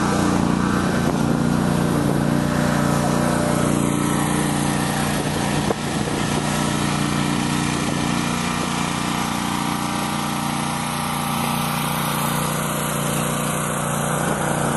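A small engine running steadily at a constant speed, without change.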